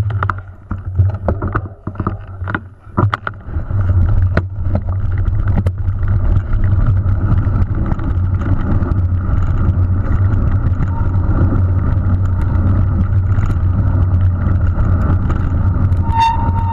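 Mountain bike ridden fast down a loose gravel trail: a steady low rumble of wind buffeting the helmet-camera microphone and tyres on stone. A few sharp knocks and clunks come as it sets off over rocks in the first few seconds, and a brief high squeal near the end.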